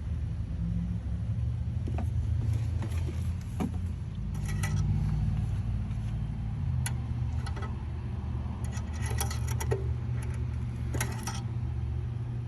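Scattered light clicks and short rattles of hands handling things while topping up a generator's engine oil, over a steady low rumble.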